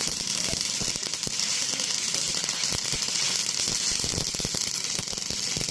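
Electric arc welding: the arc's steady crackling hiss, with many small sharp pops through it, cutting off suddenly at the end.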